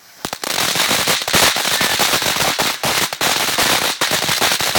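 Ground-level consumer firework going off in a dense, rapid run of loud cracks and pops, starting about a quarter second in.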